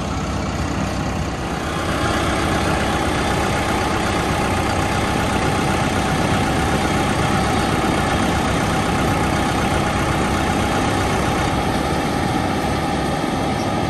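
Cat D3 dozer's diesel engine running steadily close by, with a wood grinder working in the background; the engine sound gets a little louder about two seconds in and then holds.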